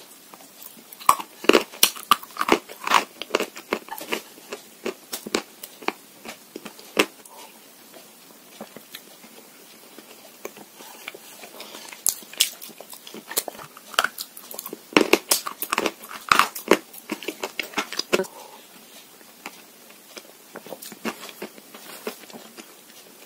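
Close-up biting and chewing of edible chalk and Uzbek clay: sharp, crisp crunches in two dense spells, one from about a second in and another from about twelve seconds in, with sparser crunches between and after.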